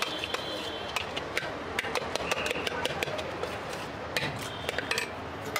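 Bhel puri being mixed in a stainless steel bowl: a rapid, irregular run of sharp clicks and clinks against the steel, with a couple of brief high rings.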